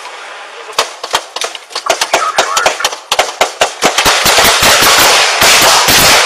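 Gunfire in a police shootout: scattered shots from about a second in, growing faster until the last two seconds are a dense run of rapid, overlapping shots from several guns.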